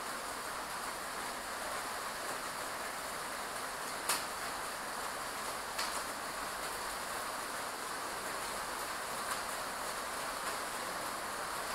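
Steady hiss of heavy rain pouring down, with two sharp ticks about four and six seconds in.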